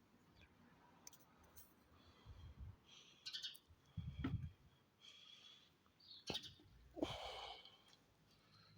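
Sparrows chirping: scattered short, high chirps that come more often in the second half, with a few faint low thumps around the middle.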